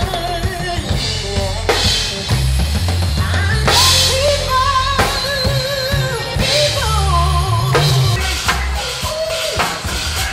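A drum kit played along to a song with a sung melody and a heavy bass line, with bass drum and snare hits and cymbal crashes.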